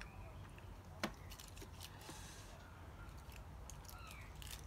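A metal spoon knocks sharply once against a ceramic bowl about a second in. Light clicks and a brief rustle follow, and near the end there are a few crisp crackles as dried seaweed sheets are handled.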